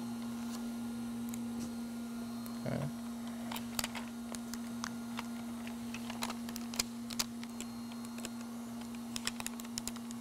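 Scattered light clicks and crackles of the plastic release film being peeled off the double-sided tape on an EPDM rubber flashing, with the rubber sheet handled and pressed down by hand, over a steady hum.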